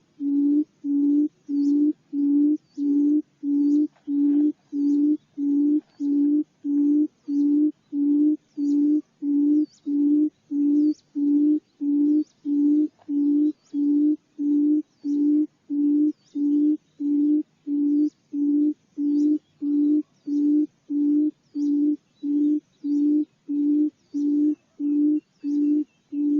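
Barred buttonquail decoy call: a long, even series of deep hooting notes, about two a second, all at the same pitch and loudness. It is a recording played to lure the birds in.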